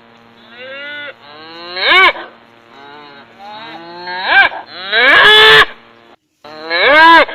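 Cattle mooing over and over: about half a dozen drawn-out calls, some loud and some fainter, that rise and then fall in pitch, two of them overlapping near the middle.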